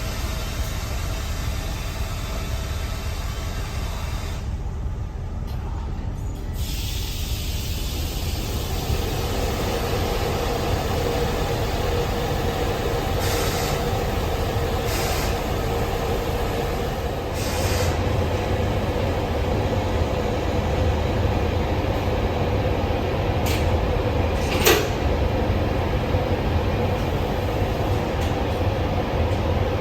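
Railway coaches and locomotive moving slowly over track: a steady low rumble, with a droning tone coming in about a third of the way through and a few sharp clicks around the middle.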